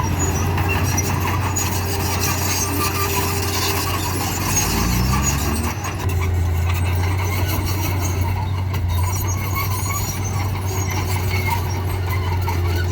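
Bulldozer and dump-truck machinery running steadily with a low hum, the pitch rising about four to five seconds in before a short dip, then settling back.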